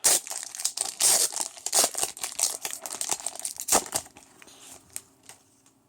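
Foil Pokémon card booster pack wrapper being handled, crinkling and tearing in a dense crackle for about four seconds, then trailing off.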